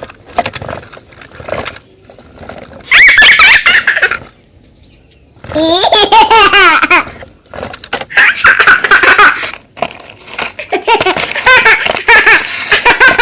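A baby or young child laughing in high-pitched, wavering bouts: four stretches of laughter with short pauses between.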